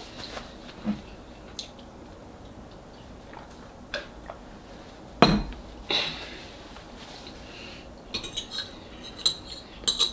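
Quiet room with soft rustling of a paper napkin and a few scattered light knocks, the loudest about five seconds in. Near the end comes a quick run of metal clinks as a spoon and fork touch a dish.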